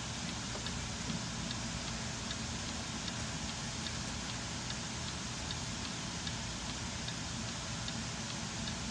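Land Rover LR4 engine running steadily at idle, with a light regular ticking about three times a second over the hum.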